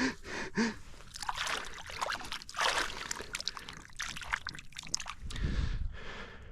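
Water splashing and sloshing in irregular strokes.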